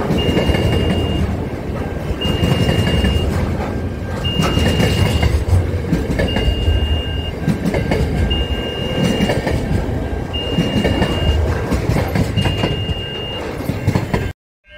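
Container freight train passing close by, its wheels rumbling and clattering over the rails. Over it, the level crossing's warning alarm sounds a long high beep about every two seconds. The sound cuts off abruptly near the end.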